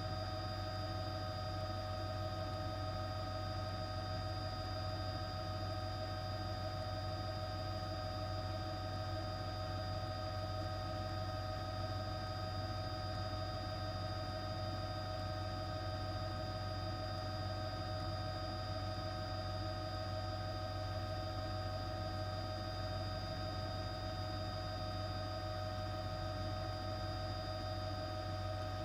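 Steady hum made of several constant tones, low and high together, over a faint hiss, unchanging throughout.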